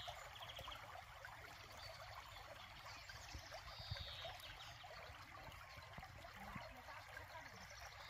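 Faint outdoor ambience: a steady, quiet rushing hiss with a short high descending chirp about halfway through.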